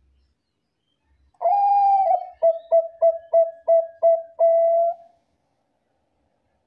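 Zebra dove (Bangkok perkutut) cooing: one long opening coo, then a quick even run of about seven short coos and a final held coo, all lasting about three and a half seconds.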